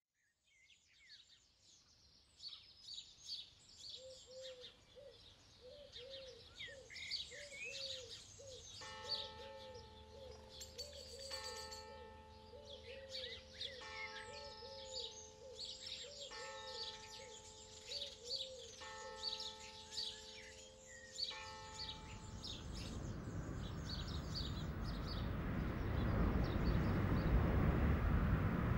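Birds chirping and singing, with a low call repeated in a steady rhythm. From about nine seconds in, soft sustained chords sound about every two seconds. From about 22 seconds a rising whoosh of noise swells louder and covers the rest.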